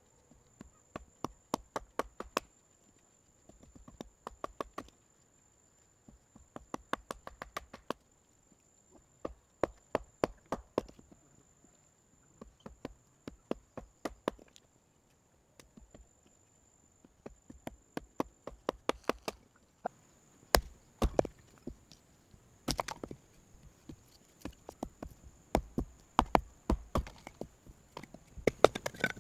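Groups of quick, sharp knocks of a hand tool striking wood, several a second with short pauses between groups, and a few heavier blows after about twenty seconds. A steady high insect drone runs underneath.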